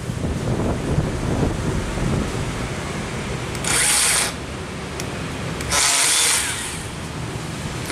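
Bosch BSH180 18 V cordless compact band saw running, its blade cutting through a 40x40 mm hollow steel tube with 2 mm walls. Two brief louder, higher-pitched stretches come about four and six seconds in.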